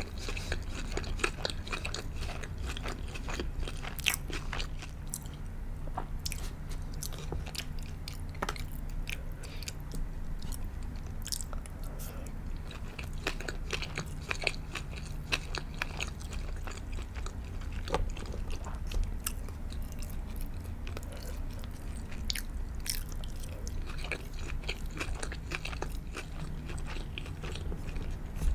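Close-miked eating of sushi and sashimi: steady chewing with frequent crisp crunches and wet clicks, over a constant low hum.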